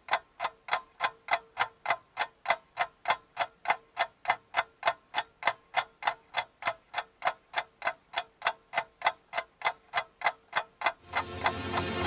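Steady clock ticking, about three sharp ticks a second. Music swells in under the ticks near the end.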